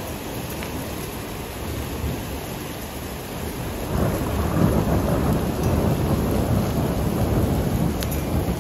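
Heavy rain pouring down in a steady hiss, with a low rumble of thunder that swells about four seconds in.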